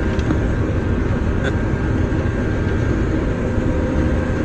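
John Deere 9500 combine running steadily while harvesting corn: a constant low machinery drone with a faint steady whine over it.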